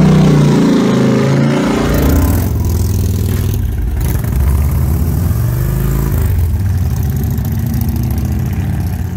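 Harley-Davidson touring trike's V-twin engine running loud, revving for the first two seconds or so, then running steadily at a lower, deeper note.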